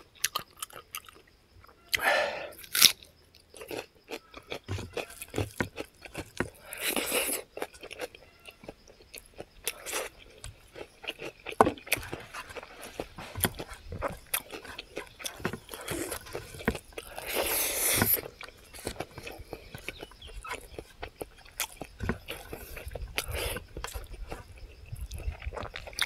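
A person eating fried pig's feet, picked up close by a clip-on microphone: chewing and biting with many short mouth clicks, and louder bursts of eating noise about two, seven and seventeen seconds in.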